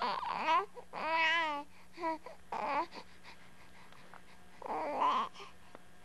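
A young baby cooing and babbling in short vocal bursts, her early pre-speech sounds; one, about a second in, wobbles up and down in pitch. A lull of over a second comes before a last coo near the end.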